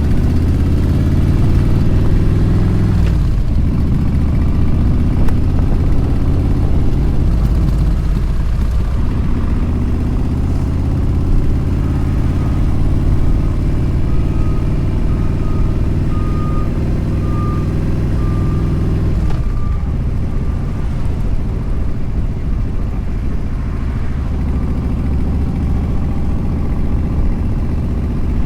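Motorcycle engine running at road speed with wind noise, its pitch dropping sharply three times as the rider shifts or eases off the throttle. A faint beep repeats about once a second through the middle.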